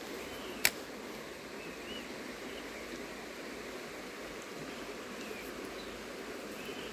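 Shallow stream running steadily over stones, with one sharp click about half a second in.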